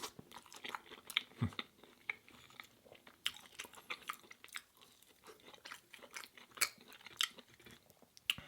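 A person chewing food close to the microphone: irregular wet, crunchy mouth clicks and smacks, several a second.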